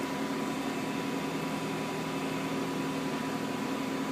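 Steady machine hum with a few constant tones, unchanging throughout.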